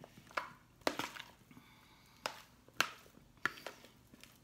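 A metal fork stirring chunks of boiled potato and mayonnaise in a plastic tub, clicking sharply against the plastic about six times with soft squishing between.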